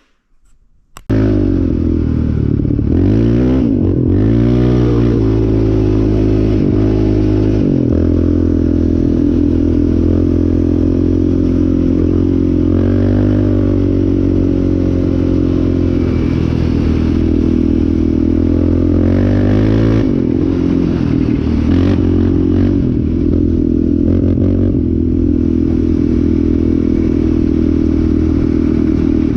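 Yamaha Raptor 700R sport quad's single-cylinder four-stroke engine being ridden hard, its revs rising and falling several times as the throttle is worked. It comes in abruptly about a second in.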